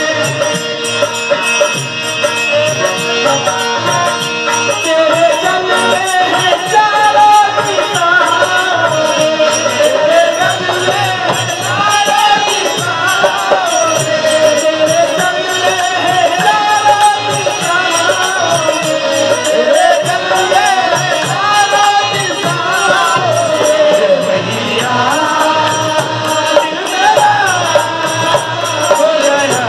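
Devotional bhajan music: a voice sings a winding, wavering melody over a steady drum beat and rattling percussion. For the first few seconds, held instrumental notes sound beneath it.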